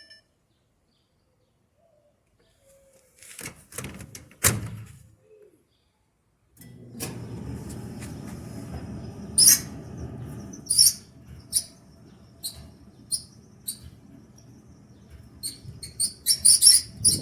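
Kenmore Elite gas dryer: a few knocks, then about six seconds in the motor starts and the drum turns with a steady low hum. Short, high squeaks repeat about once a second and come faster near the end. The repairman suspects one of the worn rear drum rollers.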